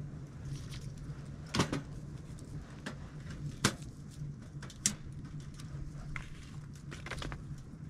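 Dry twigs being snapped by hand: about five sharp cracks spread irregularly, three of them loud, over a steady low hum.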